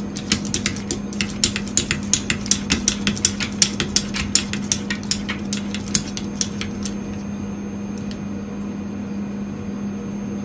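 A steady low electrical hum with a run of sharp, irregular clicks, about three to five a second, for roughly seven seconds; after that the clicks stop and only the hum goes on.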